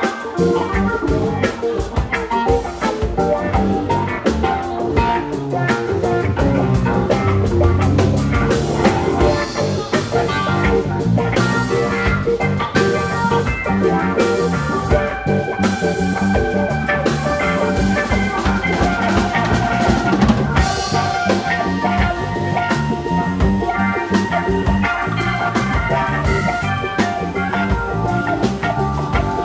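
Instrumental funk recording by a combo of electric guitar, saxophone, organ, bass and drum kit. The drum kit keeps a busy groove, and held notes ring out over it from about halfway through.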